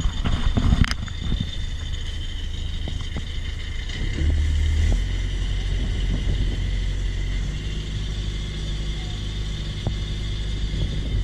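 A boat's engine running steadily under way, a low rumble with a steady hum above it that grows a little louder about four seconds in.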